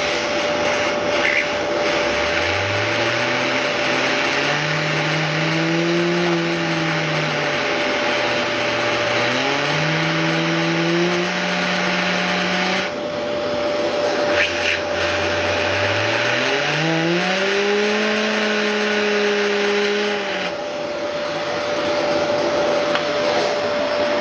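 Vacuum cleaner running with a steady whine, its airflow spinning a computer case fan. The fan's hum rises in pitch as it spins up, holds, then falls, three times over; the spinning fan is working as a dynamo to light an LED.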